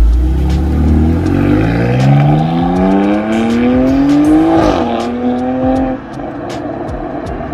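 BMW X3 M's twin-turbo straight-six exhaust as the SUV pulls away and accelerates hard, the engine note rising steadily for about four seconds. It dips briefly at a gear change, holds, then falls away about six seconds in as the car drives off.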